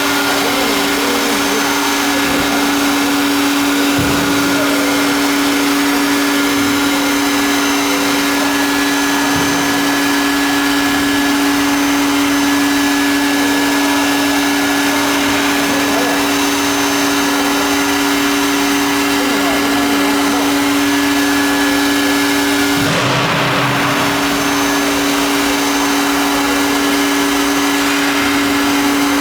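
Air-cooled spindle of a 1325 CNC wood router running at steady speed, a steady motor whine over a hiss that changes briefly about two thirds of the way through.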